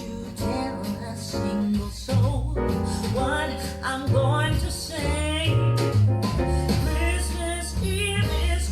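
Music with a singing voice over keyboard and a strong bass line, played back through Axis CR5 loudspeakers in a sound test.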